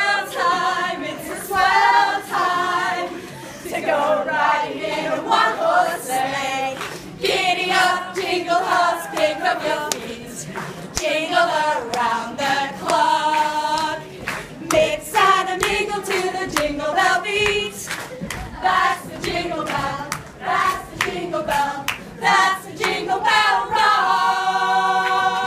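A group of student voices singing unaccompanied, with hand claps along the song. The song ends on a long held chord near the end.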